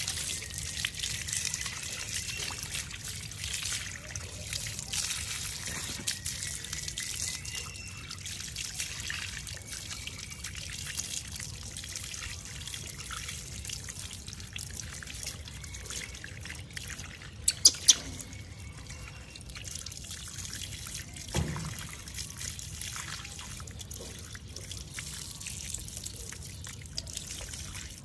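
Water from a garden hose pouring and trickling over a baby monkey being bathed, splashing onto the paving below in a steady stream. Two sharp clicks close together about two-thirds of the way through, then a duller knock a few seconds later.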